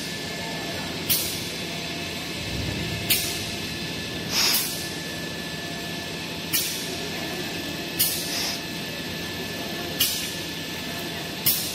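Steady hum of paper-roll production machinery running, with a short hiss every one and a half to two seconds.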